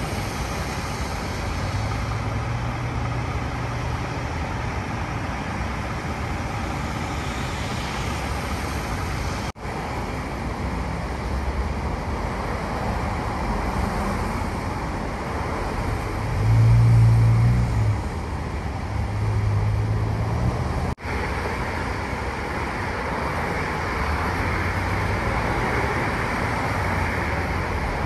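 Highway traffic passing below: a steady rush of tyres and engines. A louder, deeper engine hum passes a little over halfway through, then a second one shortly after. The sound breaks off for an instant twice.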